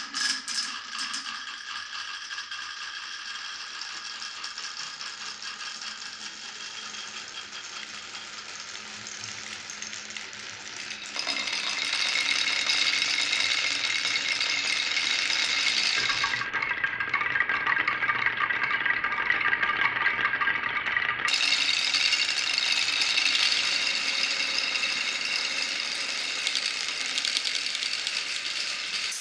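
Glass marbles rolling and rattling along a marble run track, a continuous dense clatter of rapid clicks. It grows louder about a third of the way in and turns duller for several seconds in the middle before brightening again.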